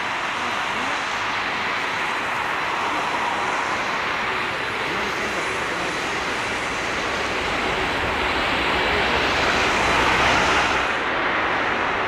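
Jet engines of a twin-engine airliner on the runway, a steady rushing roar that grows louder near the end.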